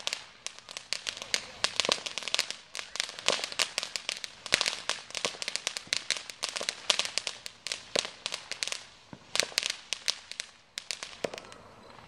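Ground fireworks fountain crackling, a dense run of sharp, irregular pops several times a second that thins out and stops about eleven seconds in as the fountain burns out.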